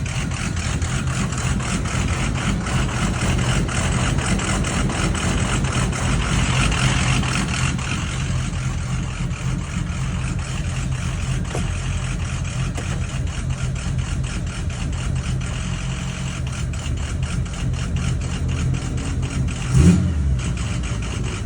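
Ford 6.0 Power Stroke V8 turbo-diesel idling with a steady, fast clatter: a rough idle, with the engine run 30 miles on REVX additive. A single brief thump sounds near the end.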